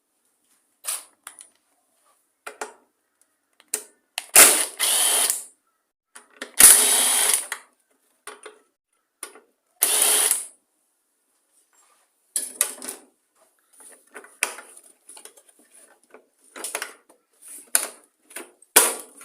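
A ratchet wrench backing out the screws on a small engine's top cover, running in three rapid bursts about a second long each. Scattered metal clicks and knocks come between and after the bursts.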